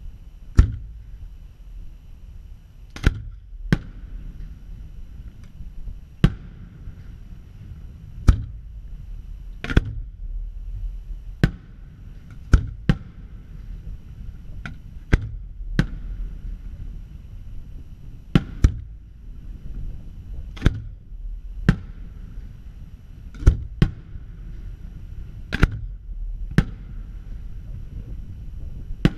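Aerial fireworks shells bursting one after another, a sharp bang about every one to two seconds, sometimes two close together. A low rumble runs between the bangs.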